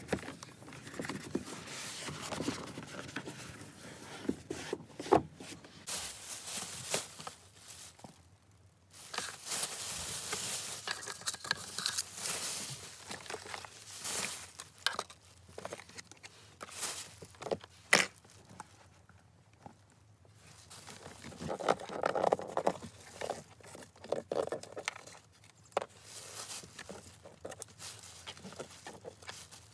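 A microfiber cloth rubbing over a car's plastic interior trim, along with a plastic bag being handled, crinkling and rustling, and scattered small knocks and clicks.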